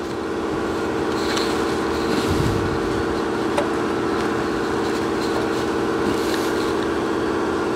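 A steady mechanical hum, with a few faint clicks of hands working among engine parts.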